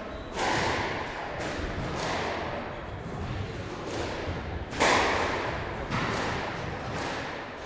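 Squash play on a neighbouring court: ball strikes on the walls and rackets at irregular intervals, about a second apart, each echoing through the hall. The loudest strike comes about five seconds in.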